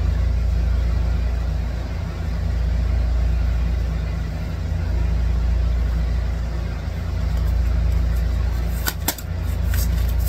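A steady low motor-like hum that swells and fades every two or three seconds. About nine seconds in, a quick run of crisp clicks begins as tarot cards are shuffled.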